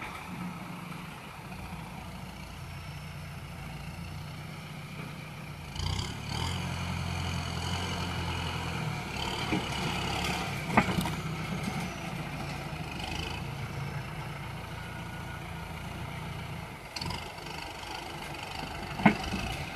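Kubota M6040 tractor's four-cylinder diesel engine running as its front dozer blade pushes soil. The engine note grows louder about six seconds in. Two sharp knocks are heard, one near the middle and one near the end.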